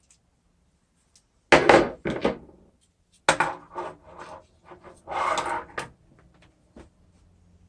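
Knocking and clattering of a car window regulator and tools being handled on a workbench: three bursts of knocks, the last a longer scraping rattle, while the regulator's motor is being taken off.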